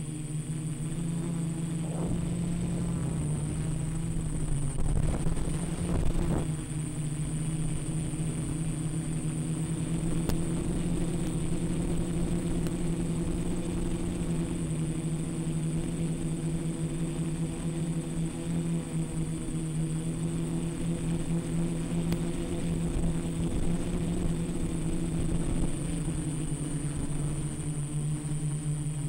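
Quadcopter's electric motors and propellers droning steadily in flight, with a constant high-pitched whine over it. The drone swells briefly about five to six seconds in.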